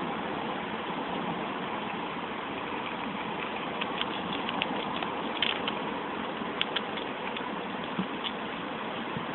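A steady rushing background noise, with a run of short crisp clicks and crunches in the middle: rabbits chewing fresh green leaves close to the microphone.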